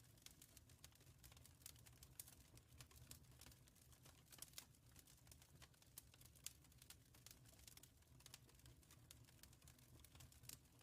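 Wood fire in a fireplace crackling faintly, irregular small pops and snaps over a low steady rumble.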